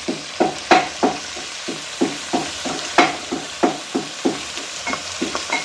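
Curry frying in a pan and being stirred: a spatula scrapes the pan in a quick rhythm, about three or four strokes a second, over a steady sizzle.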